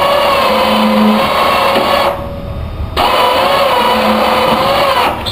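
A motor runs with a steady, slightly wavering whine under load and cuts out twice for about a second.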